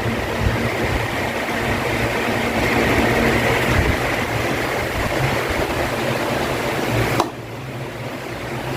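Electric fan running with a steady whooshing hum. About seven seconds in there is a sharp click, and the fan then runs noticeably quieter.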